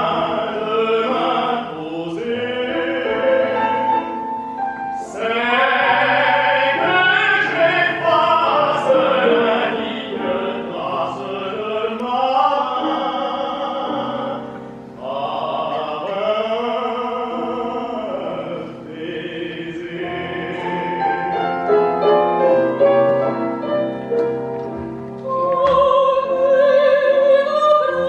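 A tenor and a soprano singing an operatic duet in French, accompanied on grand piano. The soprano's voice is heard near the end.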